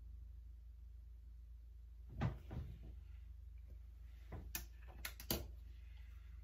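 Several short clicks and knocks of makeup items being put down and picked up on a counter, the loudest about two seconds in, over a steady low hum.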